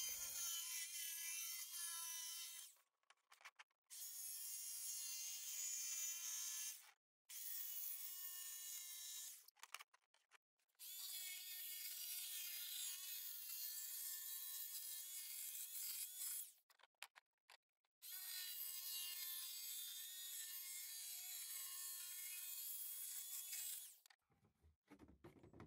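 Electric jigsaw cutting a thin 5 mm plywood sheet, running in five stretches of a few seconds each with short pauses between, its motor pitch steady in each run.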